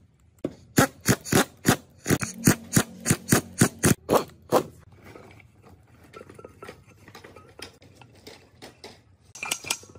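Sharp metal strikes on an aluminium gearbox case, about three a second for the first half, with a low motor hum under the later strikes as a power tool drives a bolt into the case. Then quieter clicks and clacks of the parts, and a short clatter near the end.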